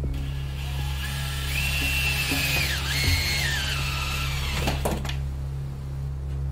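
Cordless drill working into a wooden shelf, its motor whine rising, dipping under load and recovering, then stopping about five seconds in. Background music plays underneath.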